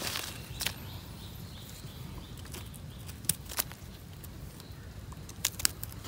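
Footsteps and rustling through forest leaf litter, with several sharp snaps of twigs or dry leaves, two of them in quick pairs in the second half.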